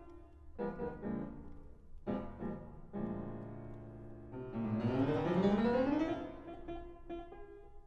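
Fortepiano and wind quintet playing classical chamber music: a few short chords, a held chord, then a fast fortepiano run climbing in pitch about five seconds in, easing off into quieter notes.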